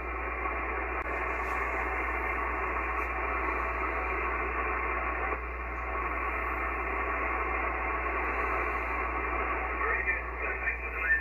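Steady hiss of radio band noise from an ICOM IC-7300 HF transceiver's speaker, with no clear station coming through. It is briefly louder near the end.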